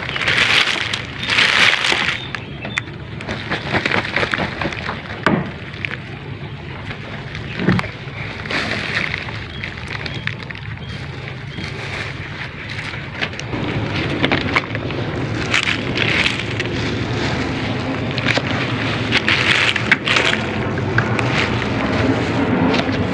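Rustling and crinkling of plastic sheeting and debris being handled close to the microphone as remains are gathered by hand from an opened coffin, with scattered clicks. A steady low rumble comes in about halfway through.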